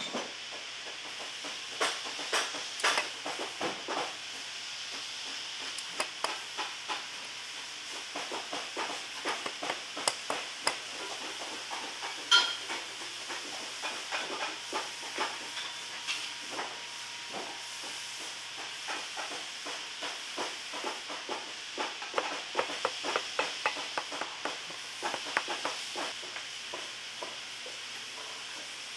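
Bootmaker's hand tools working a leather insole on the last: pincers pulling lasting tacks and a broad knife scraping the tacked insole. They make irregular clicks and scrapes throughout, with one sharp metallic ping about twelve seconds in, over a steady hiss.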